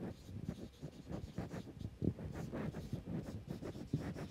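Marker pen writing on a whiteboard: a quiet run of short, irregular scratching strokes.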